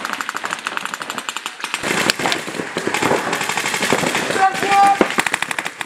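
Paintball markers firing in rapid strings of evenly spaced shots, about a dozen a second, most densely at the start and again near the end.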